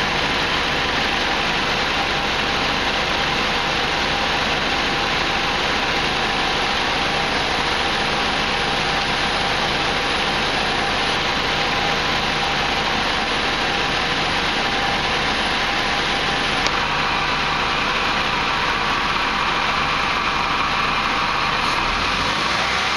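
Turbocharged PT Cruiser four-cylinder idling steadily, heard close in the open engine bay with a strong even hiss, its intake hose and vacuum line back in place; the engine note starts to rise right at the end. The turbo is being starved of oil by a clogged oil supply line.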